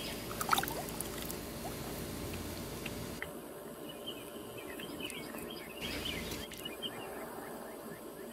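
Birds chirping in the background over a steady low rumble, with a couple of brief clicks or small splashes about half a second in.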